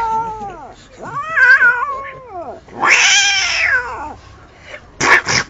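A cat yowling in long, drawn-out meows: one call trails off at the start, another rises and falls from about a second in, and a third follows about three seconds in. A short noisy burst comes near the end.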